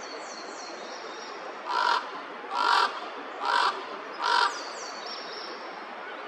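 Common raven calling: four short, harsh croaks about a second apart, with faint high falling whistles of a smaller bird in the background.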